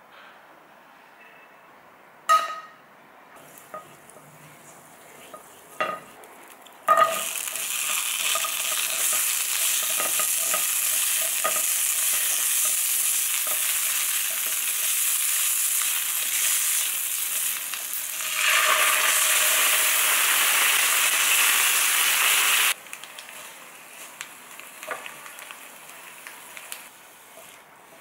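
Asparagus spears sizzling in hot fat in a frying pan. The sizzle starts suddenly with a sharp clack about seven seconds in, gets louder a few seconds before it cuts off abruptly about fifteen seconds later, and a few light knocks of utensils on the pan come before and after.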